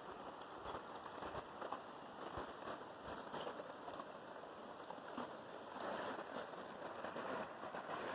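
River water flowing and rippling, a steady hiss with small crackles that grows a little louder about six seconds in.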